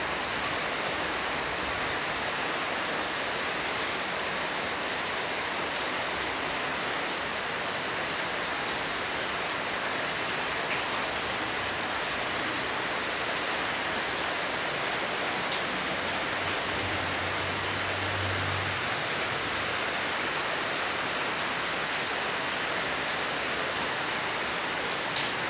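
A steady, even hiss, with a few faint ticks, a short low hum about two-thirds of the way in, and a sharp click near the end.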